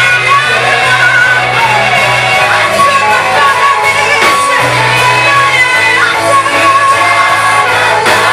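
Live Swahili gospel praise music: a praise team singing over a band with a steady bass, and shouts from the congregation.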